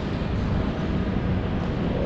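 Kawasaki Ninja 400's parallel-twin engine running under a steady rush of wind and road noise while riding.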